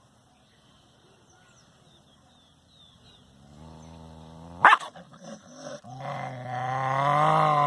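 A dog growling low, with one sharp short bark about halfway through, then a long, louder wavering growl near the end.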